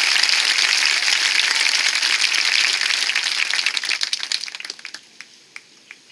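Crowd applause from stadium bleachers after a musical section, dense at first and thinning out about four seconds in to a few last scattered claps.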